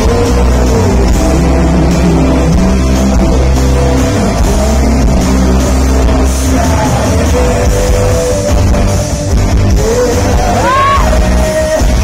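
Live rock band with electric guitars playing loud under a male singer; a note slides up and is held about ten seconds in.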